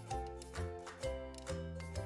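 Background music with a steady beat, its bass notes changing about twice a second.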